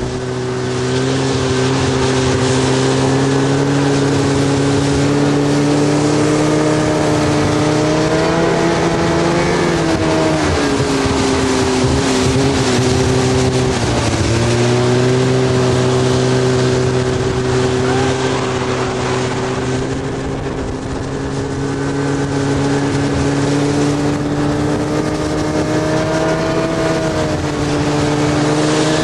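A vehicle engine running at steady revs, its pitch sagging and recovering twice near the middle, over a hiss of wind or tyre noise.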